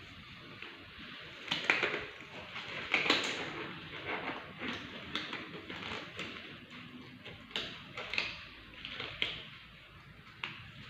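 Hands rubbing together through a handwashing routine: a string of irregular short swishing rubs, some sharper than others.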